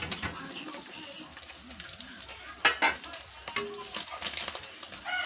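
An egg sizzling in hot oil in a frying pan, with a metal spatula working in the pan and two sharp knocks a little past halfway.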